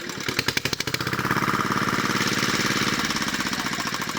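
A small engine running with a rapid, even knock, a little fuller and louder for about two seconds in the middle.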